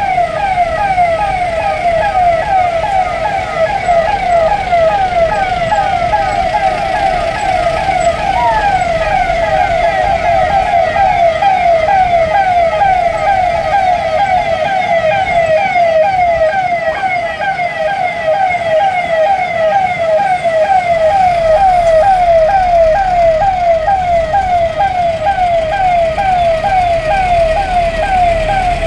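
Police vehicle siren sounding continuously in a fast yelp, cycling about three times a second, over the low rumble of the slow-moving convoy's engines.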